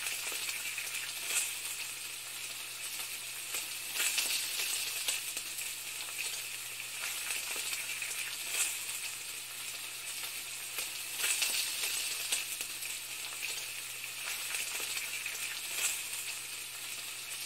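Steady sizzling hiss with scattered crackles, a few of them louder, over a low steady hum.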